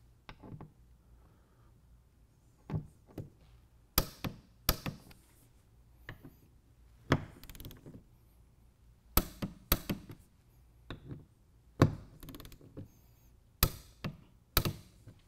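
Click-type torque wrench snapping sharply as the door hinge bolts reach the set 21 foot-pounds, about eight loud clicks, mostly in pairs, with fainter clicks of the wrench being worked between them.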